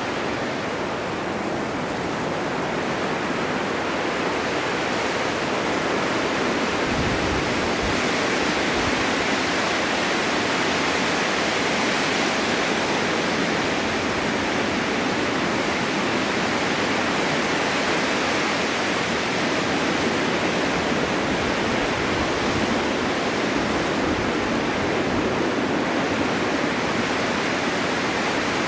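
Snowstorm wind blowing steadily, a dense even noise that swells a little around the middle.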